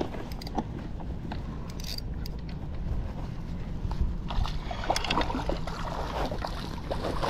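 Water splashing and lapping against a pedal-driven kayak's hull as it moves along, loudest about four to five seconds in, over a steady low rumble. There are a few light clicks early on.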